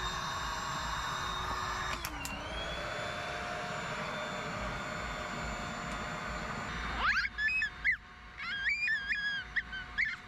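Electric air pump inflating an airbed, running steadily, its pitch dipping briefly about two seconds in; it stops about seven seconds in. High, wavering chirp-like sounds follow.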